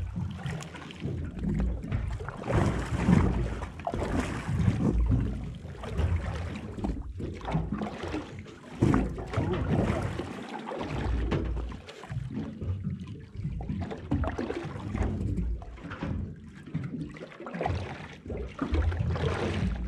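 Wind buffeting the microphone in uneven gusts, with water lapping against a small aluminium boat's hull.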